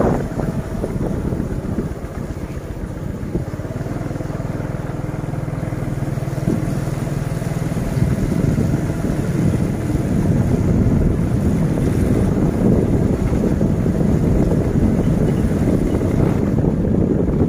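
Motorcycle engine running at a steady cruise while riding, with wind rumbling on the microphone.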